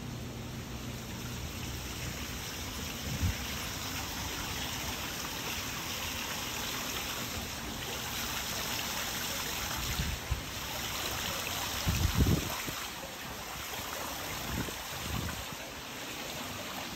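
Water from a stone fountain pouring and trickling into its basin, a steady splashing that grows louder in the middle and fades again. A few dull low thumps break through, the loudest about twelve seconds in.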